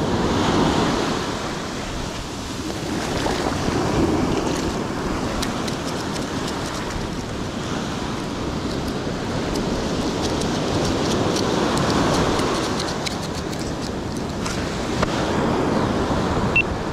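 Ocean surf breaking and washing over a rocky shore, swelling and easing several times.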